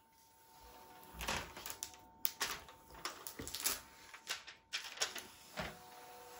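Clear plastic protective film crinkling in irregular bursts as it is peeled off and handled over the 3D printer's glass build plate.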